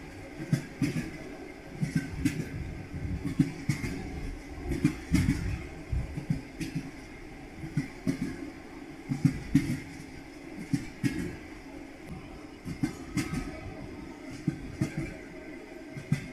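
Train wheels clattering over rail joints: a steady rumble with repeated, unevenly spaced knocks.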